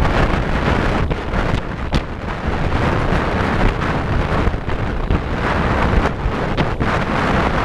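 Wind buffeting the microphone over the steady rush of a boat running at speed on a shallow river, with engine and water noise underneath.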